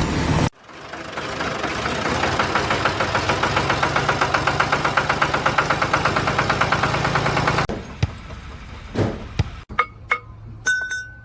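An engine-driven machine running with a steady pulsing beat, about five beats a second. It swells over the first second or so, stops abruptly, and is followed by a few scattered knocks and clicks.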